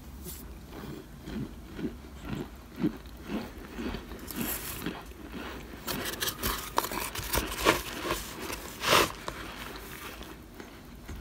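Metal spoon pressing and scraping through chunks of cornstarch in a foil pan, giving light crunches and squeaks. A run of soft, even crunches comes first, then louder crisp ones from about four seconds in, the loudest near nine seconds.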